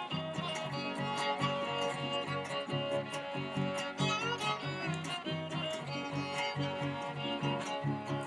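String band music: a violin playing a sliding melody over steady, rhythmically strummed guitars.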